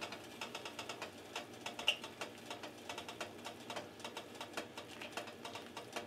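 Pot of broth and vegetables boiling, its bubbles popping in quick, irregular clicks as a ladle stirs through it. One brighter tap with a short ring about two seconds in.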